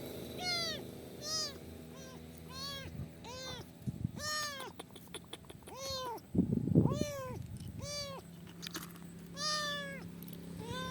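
A kitten meowing over and over, about one short rising-and-falling call a second, with a brief low rumble a little past the middle.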